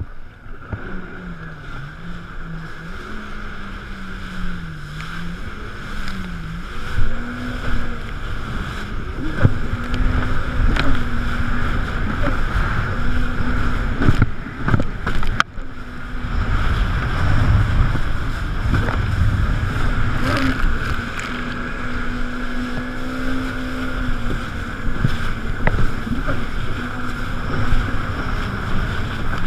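Jet ski engine running at speed across choppy sea. Its note wavers up and down with the throttle for the first several seconds, then holds steady. Water spray and wind on the microphone run throughout, and a few sharp thumps come roughly ten to fifteen seconds in as the hull hits the waves.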